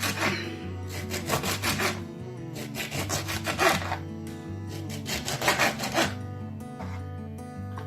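Rasping food-prep strokes on fruit and vegetables, coming in several bursts of quick strokes, over background music with sustained notes.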